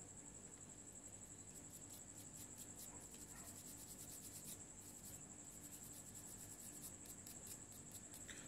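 Faint, rapid scratching of a toothbrush scrubbing a small metal car-alternator part, in quick short strokes. A steady high-pitched tone runs underneath.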